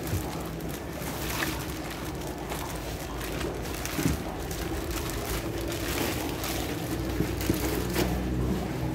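Clear plastic packing bags rustling and crackling as they are handled, with a few sharper crinkles, over a steady low machine hum.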